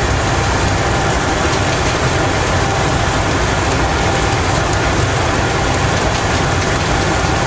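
Cab noise of a Škoda-built BDŽ class 44 electric locomotive running at about 120 km/h: a steady, loud rumble of wheels and running gear on the track, with a faint steady tone above it.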